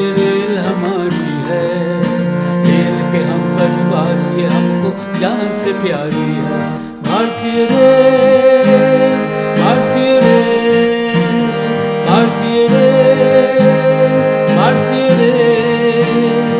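Instrumental opening of a Hindi song: a plucked-string melody with repeated rising slides, over held notes and a steady accompaniment.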